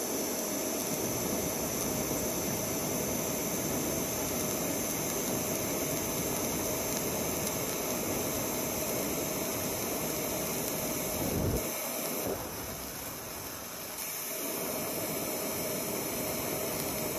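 DC TIG arc welding stainless steel on an Everlast Hurricane 220 MTS-C, a steady hiss with a faint steady tone. About two-thirds of the way through there is a short thump, and the sound drops lower for a couple of seconds before the hiss returns.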